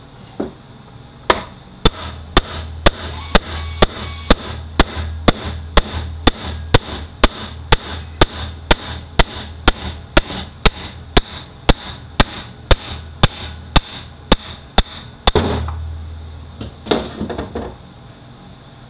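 Steady hammer blows on steel, about two a second, driving a shaft out of a gear in a Toyota U660E automatic transaxle case. A heavier knock with a longer rattle comes about fifteen seconds in, followed by a few lighter metal clatters.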